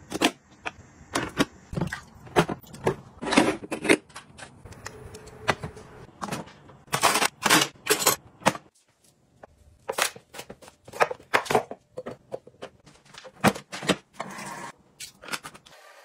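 Irregular clicks, clacks and knocks of hard plastic household gadgets and utensils being handled and set down, with a short pause about halfway through.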